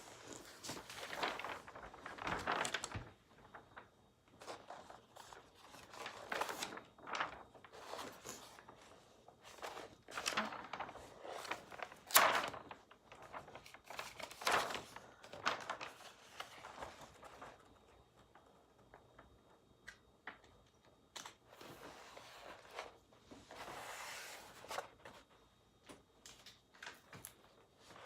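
Rustling, scraping and rubbing from a sticky diamond painting canvas and its plastic cover being handled and smoothed down by hand, with a few light knocks, the sharpest about twelve seconds in.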